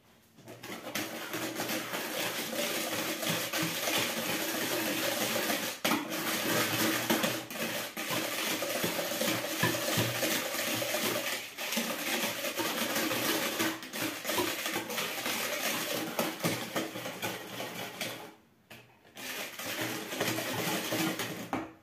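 Hand whisk beating pancake batter in a plastic mixing bowl: continuous rapid whisking, stopping briefly about three seconds before the end, then starting again.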